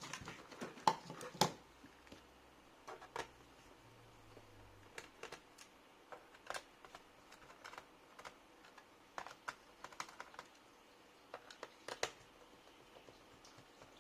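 Irregular small clicks and taps of laptop parts being handled during disassembly, plastic and metal knocking and snapping. A quick cluster of louder clicks comes in the first second and a half, then single clicks scattered through the rest.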